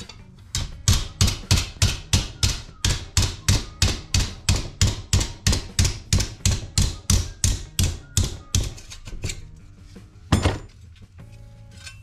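Hammer blows on a sheet-steel brace being formed, a steady run of about three strikes a second, then one harder single blow near the end.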